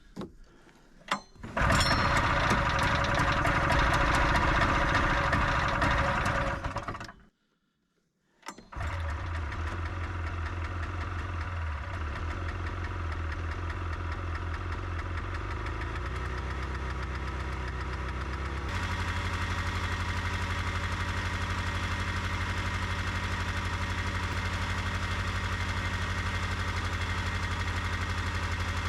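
Polaris snowmobile engine running after being coaxed into starting: several seconds of loud, high running, a sudden break, then steady running that settles into an even idle about two-thirds of the way through.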